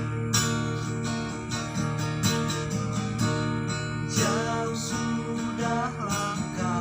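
Acoustic guitar strummed in steady chords, with a singing voice coming in about four seconds in.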